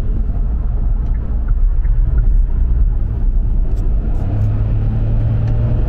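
Hyundai Casper's 1.0-litre turbo three-cylinder engine and tyre rumble heard inside the cabin while driving at road speed: a steady low drone. The engine's hum grows stronger about four seconds in as the car pulls.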